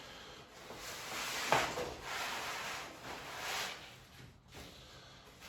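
Rolls of wallpaper being handled: the paper rustles and scrapes in uneven swells, with a light knock about a second and a half in.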